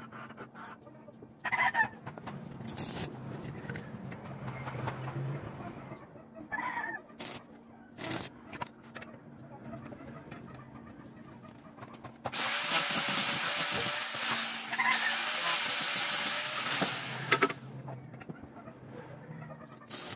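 A few sharp metallic knocks as steel flat-bar pieces are set into a motorcycle mag wheel, then a stick welder's arc crackling steadily for about five seconds, with a brief tack near the end; a faint low hum runs underneath.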